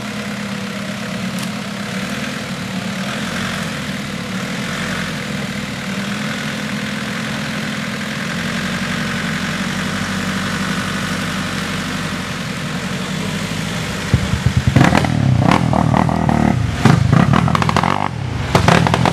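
A four-wheel drive's engine idling steadily. About fifteen seconds in, loud irregular bursts of noise and knocks break in over it.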